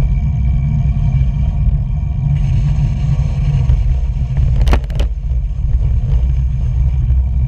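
Wind buffeting a camera microphone on a moving road bicycle: a loud, steady low rumble. A quick cluster of sharp knocks comes a little under five seconds in.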